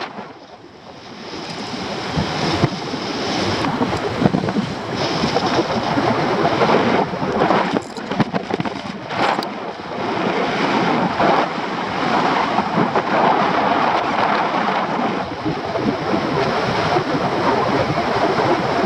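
Airflow rushing over the microphone of a paraglider's camera in flight: a steady noisy rush that dips briefly at the start, then builds and holds, with a few sharper gusts of buffeting.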